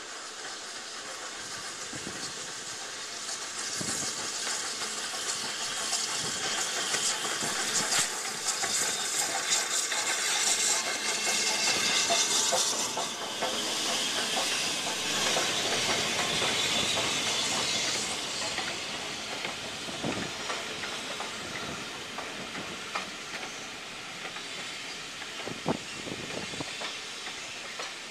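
British Railways Standard Class 9F 2-10-0 steam locomotive arriving, its hiss of steam building to a peak about halfway through as the engine passes close. Its coaches then roll by with occasional sharp wheel clicks on the track, the sound slowly easing off.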